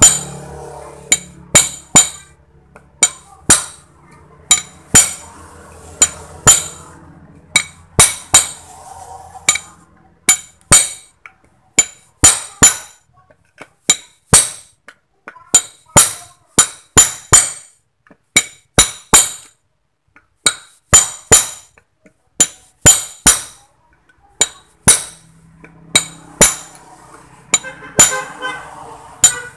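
Hammer striking a steel punch to drive an electric motor's copper-wound stator core down into a new cast-metal housing, a very tight fit: dozens of sharp metallic clinks, often in quick pairs, with short pauses between runs. A low hum sits underneath in the first third and again near the end.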